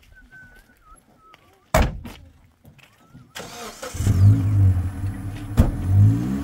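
A pickup truck's door shuts with a sharp bang a little under two seconds in. About three and a half seconds in, the engine cranks and catches, then runs with its revs rising and falling a little.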